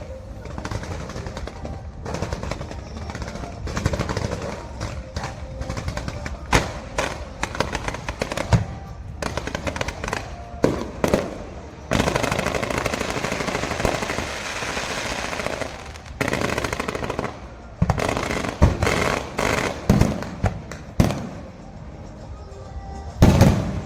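Fireworks going off in a rapid series of bangs and pops, with a dense stretch of continuous crackling in the middle and a loud cluster of bangs near the end.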